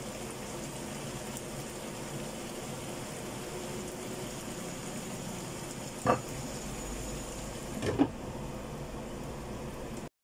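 Tongkol fish in tomato-chili sauce simmering and sizzling in a frying pan, a steady bubbling hiss. Two sharp clanks come about six and eight seconds in, the second as the glass lid goes on the pan.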